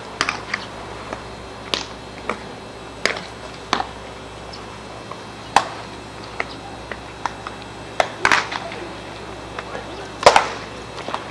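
Baseballs smacking into leather gloves during catch: short, sharp pops at irregular intervals, the loudest about eight and ten seconds in.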